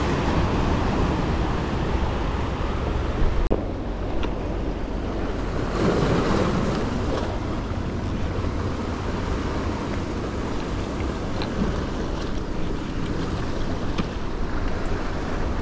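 Sea waves washing against shoreline rocks, with wind rumbling on the microphone; a wave surges louder about six seconds in.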